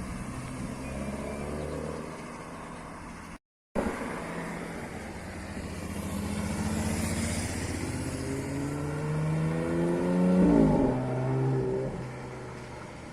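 Modified car engine accelerating, its pitch climbing steadily and then dropping sharply with a low thud about ten seconds in, like a gear change, before settling lower. A brief dropout interrupts the sound about a third of the way in.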